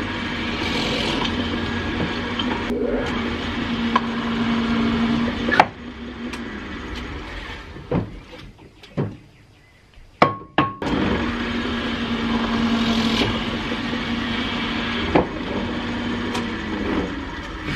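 Old benchtop drill press motor running steadily with a hum while a thin twist bit bores a guide hole into a block of wood. A little over five seconds in it stops and runs down, and a few sharp knocks come during the lull. About eleven seconds in it starts again and runs until it fades near the end.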